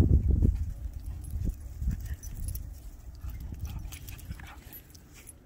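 Footsteps crunching and thumping in deep snow, heaviest in the first half-second and then fading, with a few separate steps after.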